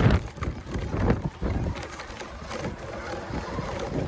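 Wind buffeting the microphone, with scattered clicks and crunches from a toy RC Ford F-150 Raptor monster truck rolling over loose gravel. It is loudest at the very start, then settles lower.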